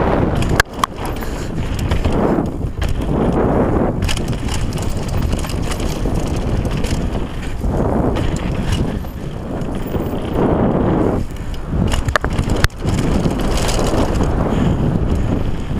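Downhill mountain bike descending fast on a dirt and gravel trail: knobby tyres crunching and rumbling over the ground, the bike rattling over bumps with several sharp knocks, and a stretch over a wooden boardwalk about halfway through.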